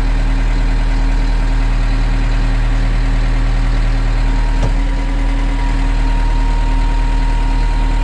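Tractor engine idling steadily while the round baler's tailgate is locked open and its belts are let loose. A click about five seconds in, after which a faint steady whine runs alongside the engine.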